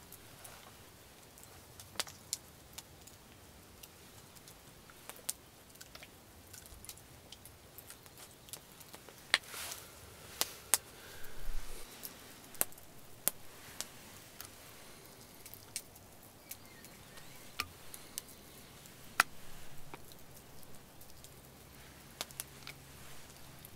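A small wood campfire crackling quietly, with scattered sharp pops and clicks, a few louder ones coming close together around the middle.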